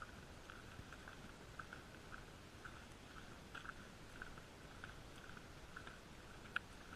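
Faint, muffled crunching footsteps of a hiker walking on a dirt trail, about two a second, with one sharper click near the end.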